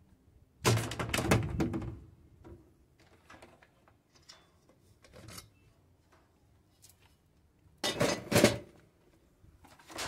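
A top-loading Easy washing machine's plastic agitator is yanked up off its drive shaft by a cable loop and pry bar: a loud clattering thunk about a second in as it comes free, then a few small knocks, and another loud plastic clatter near the end as the freed agitator is handled.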